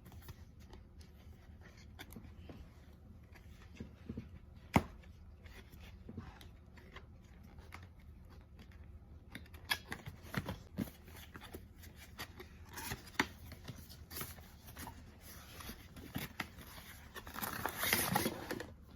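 A blood pressure monitor's box and packaging being opened and handled: scattered clicks and taps, a sharp knock about five seconds in, and rustling of wrapping near the end.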